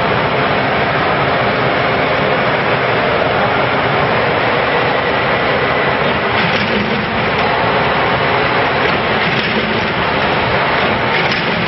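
Carton folder gluer machine running steadily as it folds and glues box blanks, giving an even, continuous mechanical rush.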